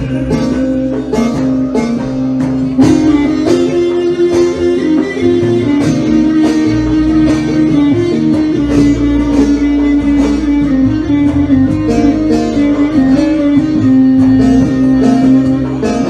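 Instrumental break in a Turkish song: a plucked string instrument carries the melody over a steady beat, with no singing.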